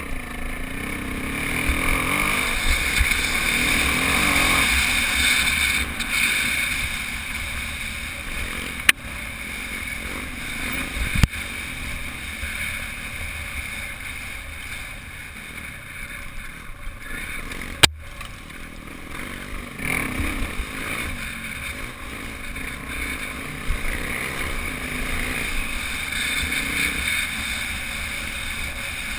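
Off-road motorcycle engine running steadily while riding along a dirt trail, with wind rumble on the microphone and three sharp knocks along the way.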